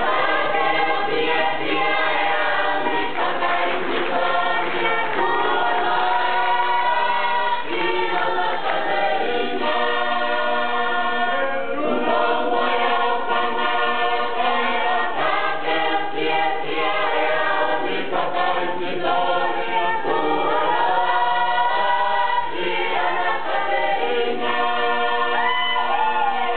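Tongan choir of men and women singing together in harmony, in long held phrases with brief breaks between them.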